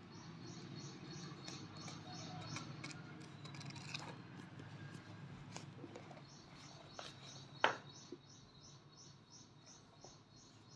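A paperback book being handled and its pages turned, with a sharp tap about seven and a half seconds in. A high chirp repeats about three times a second behind it, pausing for a few seconds in the middle, over a low steady hum.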